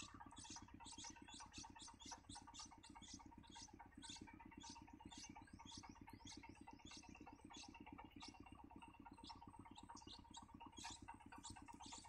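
Faint, rapid high-pitched chirps, several a second, from nestlings begging in the nest while a parent bird feeds them, over a faint low steady hum.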